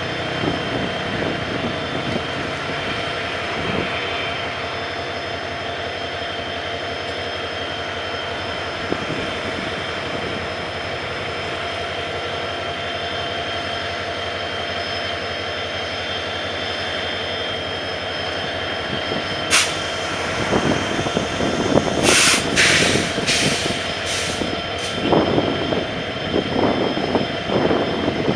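Diesel locomotive engine running steadily with a constant hum and whine. From about two-thirds of the way in, several short sharp hisses of air and irregular clanks join it.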